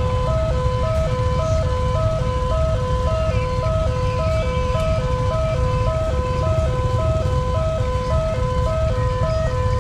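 Railway level-crossing warning siren with a fast tempo: two electronic tones, a low and a higher one, alternating quickly at about two high-low cycles a second, over a steady low rumble.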